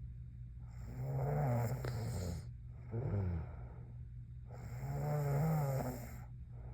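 A sleeping young woman snoring: two long snores in rhythm with her breathing, one starting about a second in and the next about four and a half seconds in, with a shorter snore falling in pitch around three seconds in.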